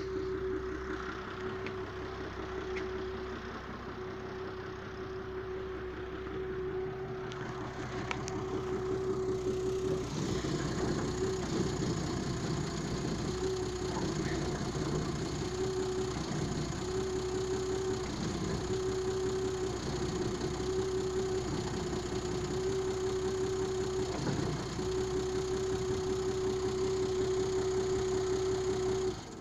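Audi car engine running steadily with a constant whine over it. The whine breaks up briefly several times in the middle, and the sound cuts off suddenly at the end.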